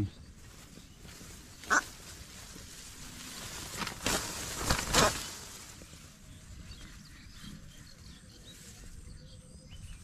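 Rice stalks rustling and being pushed aside, with one short sharp sound about two seconds in and a few louder rustling bursts around four to five seconds in.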